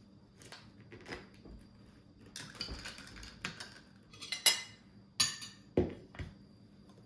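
A straw clinking against ice cubes in a stemmed drinking glass, with the loudest clinks about four and a half seconds in. Near the end a plate is set down on a table with two knocks.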